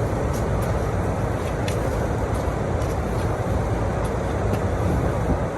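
An engine running steadily, a low rumble with a few faint clicks over it.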